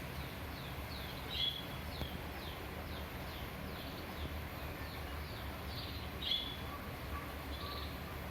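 Bird chirping in a steady series of short falling notes, about two a second, with two louder notes about a second and a half and six seconds in, over a steady low background noise.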